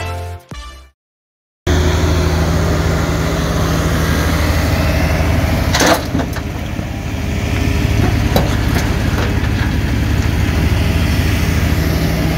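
The end of the intro music, a brief silence, then an earthmoving machine's engine running steadily, with one sharp knock about six seconds in and a few light clanks a couple of seconds later.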